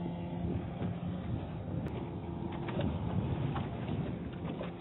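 Low steady hum of a fishing boat's engine under wind and wave noise, with light ticks and rustles from a fishing net being pulled and handled over the gunwale, most of them in the second half.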